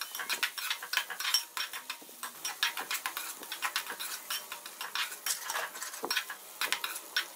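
Slotted metal spatula scraping and tapping against a metal karahi as chicken and vegetables are stir-fried, several irregular clicks and scrapes a second, over a faint sizzle.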